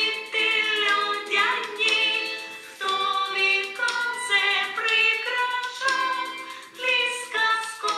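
A children's exercise song: a voice sings a melody with musical accompaniment, one note after another without a break.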